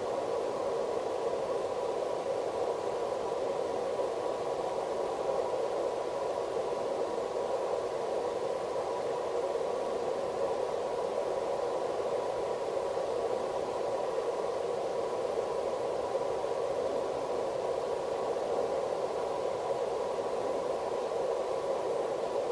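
Steady electronic hiss, like static, strongest in the low-middle range with a faint steady tone on top. It holds unchanged throughout, with no other sound standing out.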